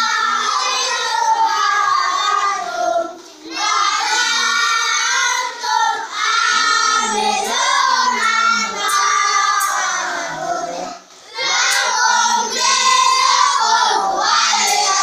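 A group of children chanting a Quran recitation together in unison, in long melodic phrases, with brief pauses about three seconds in and again near eleven seconds.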